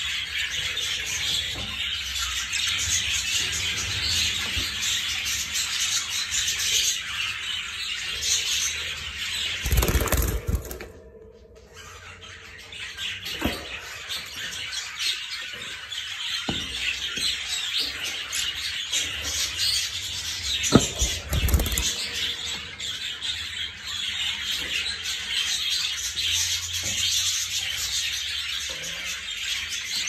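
Budgerigars chattering and chirping continuously, a dense run of high twittering calls that breaks off briefly about a third of the way in. A few low bumps come through around that break and again about two thirds of the way in.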